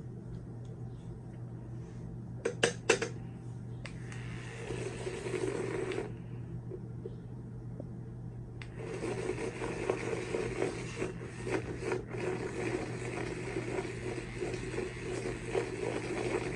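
Electric makeup brush spinner whirring as it spins a foundation brush in its bowl of water, briefly at first and then again from about halfway on, running steadily to the end. A few sharp clicks come just before the first run.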